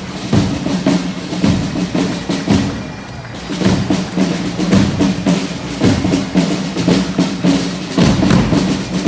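Parade drums, snare and bass drum, playing a steady marching beat with rolls, over low held tones.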